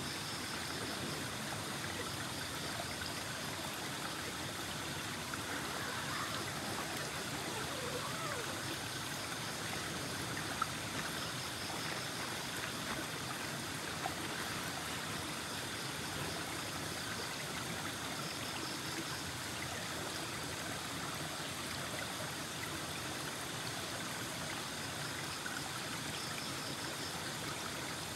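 River water running steadily over and between boulders, an even rushing with no breaks.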